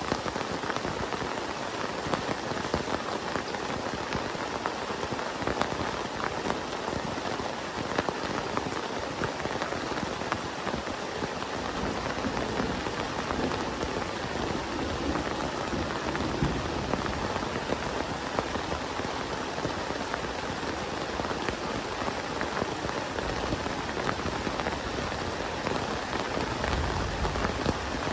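Heavy rain falling steadily, a dense hiss with many individual drops ticking on a nearby surface. A low rumble comes in underneath about halfway through.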